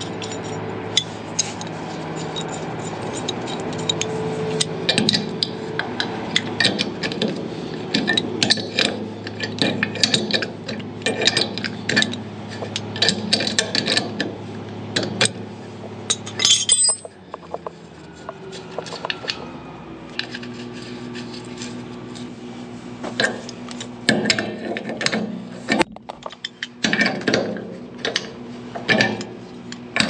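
Steel hand tools clinking and scraping on a threaded fitting in the end of a truck tank as a wrench is set on it and worked: many sharp metallic clinks, irregular and scattered. A steady low hum runs underneath, dropping away a little past halfway and coming back fainter.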